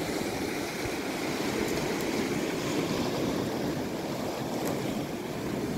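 Sea surf breaking and washing over rocks at the water's edge, a steady rush.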